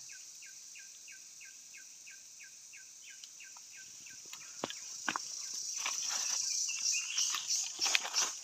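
Steady high insect buzz with a quick, repeated falling chirp, about four a second, that fades out about halfway through. From about four and a half seconds, scattered clicks and rustles, like handling and movement on dry leaves, grow louder toward the end.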